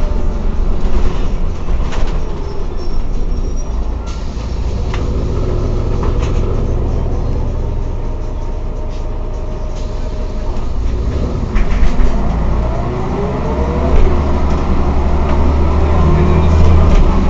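Mercedes-Benz O 405 N city bus running in service with a steady low engine drone and a few knocks and rattles. About twelve seconds in it pulls away: the drone grows louder and a rising drivetrain whine climbs in pitch.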